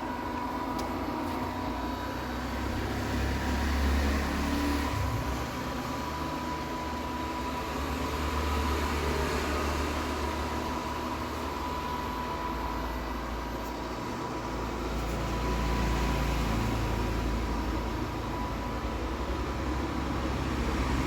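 Robot vacuum cleaner running: a steady motor and fan hum with a thin constant whine, over a low rumble that grows and fades every few seconds.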